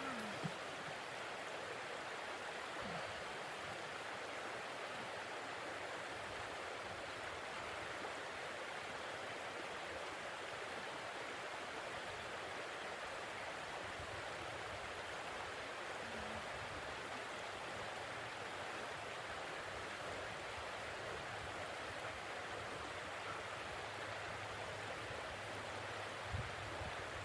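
Steady, even rushing noise of blizzard wind.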